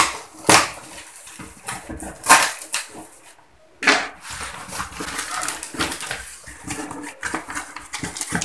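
Cardboard shipping box being torn open by hand: sharp rips of cardboard and packing tape about half a second, two seconds and four seconds in, then continuous crackling and scraping as the flaps are pulled apart.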